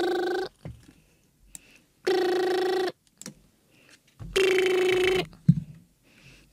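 Telephone ringback tone, a steady "prrrr" ring heard three times, each just under a second long and about two seconds apart: an outgoing call ringing and waiting to be answered.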